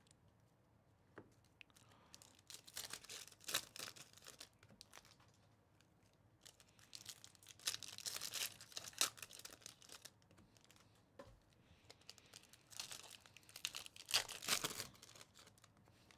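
Foil wrappers of 2024 Panini Donruss Baseball hobby packs being torn open by hand, crackling and crinkling in three short bouts, one pack after another.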